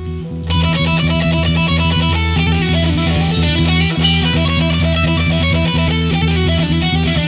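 Rock music with electric guitar: after a swelling drone the full band comes in about half a second in, with regular cymbal strokes joining about two seconds later.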